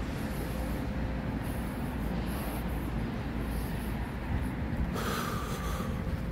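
Steady low rumble of a moving vehicle, with a short higher-pitched whine and hiss about five seconds in.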